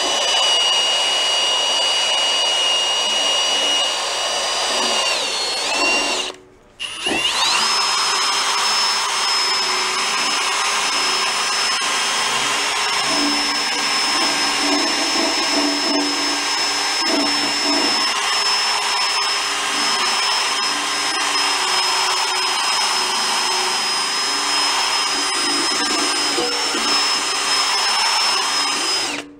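Cordless drill spinning a foam polishing pad, buffing rubbing compound into the paint of a motorcycle fuel tank: a steady whine that stops about six seconds in, starts again a moment later rising to a higher pitch, and runs on until it stops near the end.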